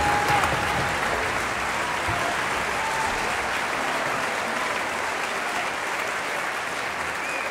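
Large audience applauding steadily, the applause slowly fading.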